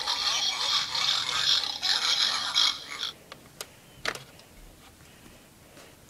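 Rustling and scraping handling noise as a hand moves plush toys and objects around, stopping about three seconds in. A couple of light clicks follow.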